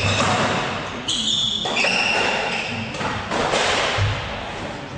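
Squash rally: the ball knocks off rackets and the court walls, and the players' shoes squeak and shuffle on the wooden court floor.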